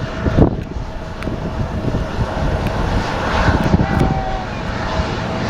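An airplane's engine running, with gusty wind rumbling on the microphone.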